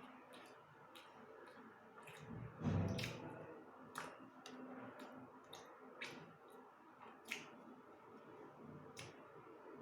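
Close-up mouth sounds of someone eating soft chocolate cake: wet, squishy chewing with scattered lip smacks and clicks about once a second, and one low thump about two and a half seconds in.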